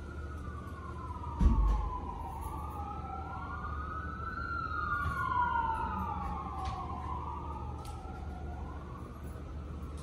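Emergency-vehicle sirens wailing, two slow rising-and-falling tones overlapping and crossing each other. A low thump about one and a half seconds in.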